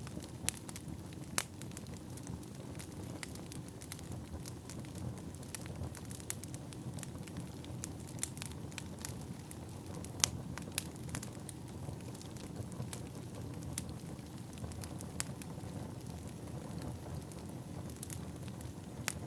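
Firewood burning: a steady low rumble of the fire with irregular sharp crackles and pops throughout, a few of them louder than the rest.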